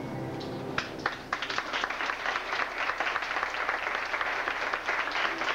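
The last held notes of the children's choir fade in the first second, then audience applause breaks out and continues.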